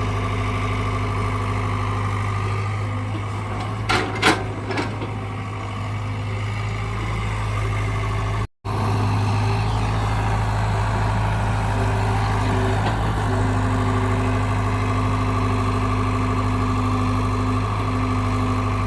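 Heavy diesel engine running steadily at idle with a deep, even hum, and a few short sharp knocks about four seconds in.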